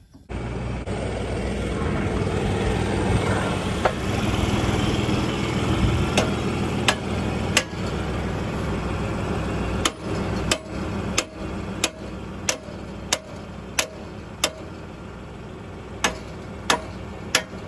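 Tractor engine idling steadily, a little quieter after about ten seconds. Over it, sharp knocks come in runs at about one and a half a second, starting some six seconds in.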